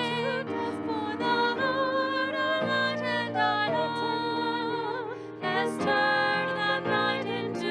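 A church hymn is sung by a voice with vibrato over sustained keyboard chords that change every second or so.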